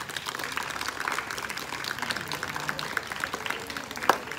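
A group of people clapping, a dense irregular patter of hand claps, with one louder clap close by about four seconds in.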